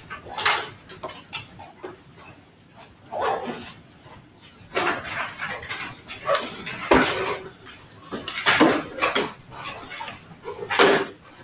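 Room bustle as people come in and move about: irregular knocks, scrapes and rustles, several loud ones a second or so apart, with quieter stretches between.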